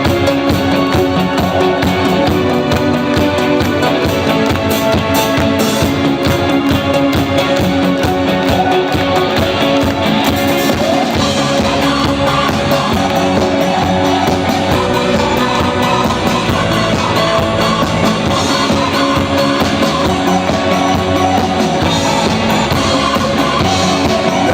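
Instrumental passage of a rock song, with a drum kit and guitar and no singing.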